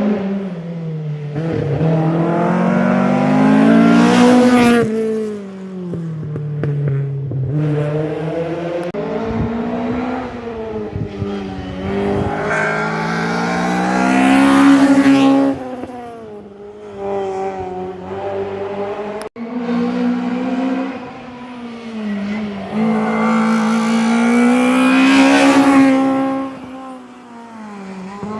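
Rally cars driven flat out on a stage: engines revving up and down through gear changes and lifts, loudest as each car comes close and fading as it goes, with about three such passes and an abrupt break about two-thirds of the way through.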